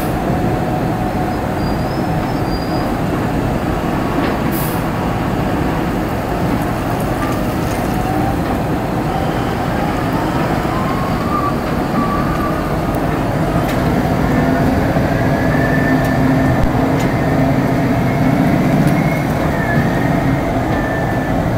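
Large mining haul truck running as it lowers its empty dump body and drives off, over steady heavy-plant noise. A whine rises in pitch through the middle as the truck pulls away.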